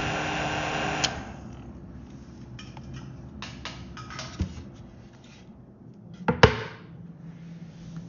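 A heat gun blowing steadily, switched off with a click about a second in. Then the faint steady hum of a quiet cooling fan, with small handling clicks and knocks and one louder knock about six and a half seconds in.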